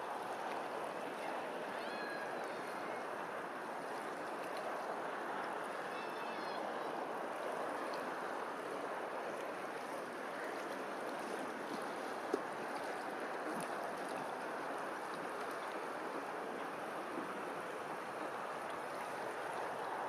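Steady rush of water lapping on open water, with a few faint short bird calls about two and six seconds in and a single sharp tick about twelve seconds in.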